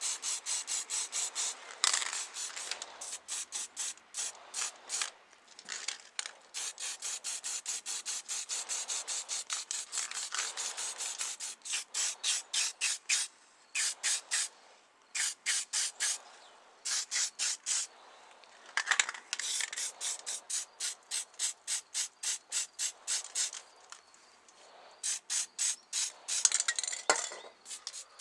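Quick back-and-forth abrasive rubbing strokes on a small model car part, as in hand sanding or filing, about three to four strokes a second with a few short pauses.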